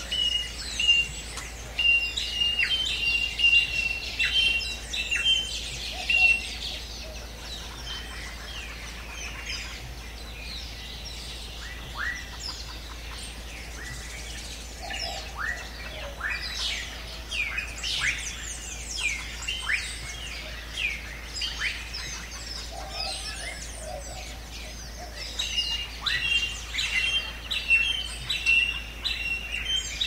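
A chorus of many forest birds calling at once, mostly quick chirps sweeping downward. A rapid string of short, even, high notes is repeated over the first few seconds and again near the end.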